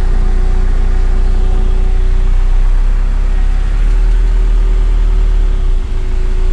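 Car running at low speed, heard from inside the closed cabin: a steady engine hum over a deep, constant rumble.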